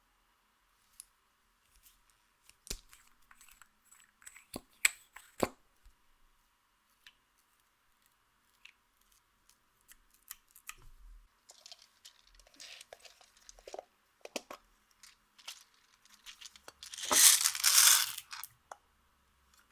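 Close-up handling of makeup items and their packaging: scattered sharp clicks and taps, then a louder crackling, tearing rustle that lasts under two seconds, about 17 seconds in.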